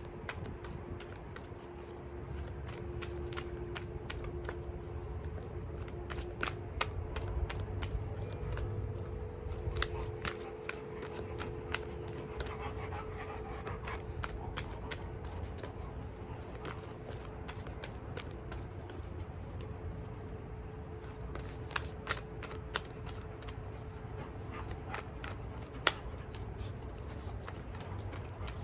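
Oracle cards being shuffled by hand: a long, irregular run of soft card flicks and slaps.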